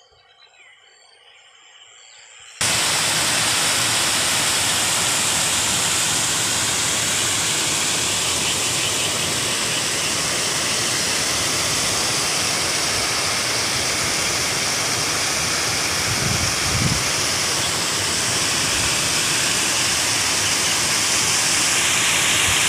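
Floodwater rushing, a loud, steady, even rush that cuts in suddenly about two and a half seconds in, after a faint, quiet start.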